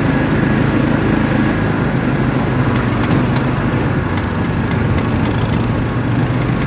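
ATV engine running steadily under load, working hard on an uphill climb.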